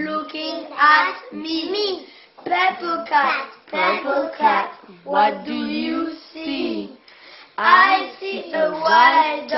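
Children singing in high young voices, in short phrases with brief pauses between them.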